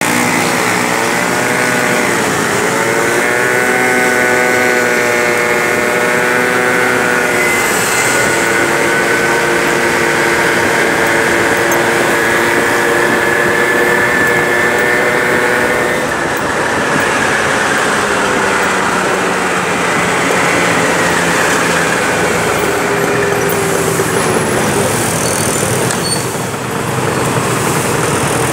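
Peugeot Jet C-Tech 50cc scooter engine running under way. Its pitch climbs in the first few seconds, holds steady, then falls away after about sixteen seconds as the scooter slows, over a steady rush of wind and road noise.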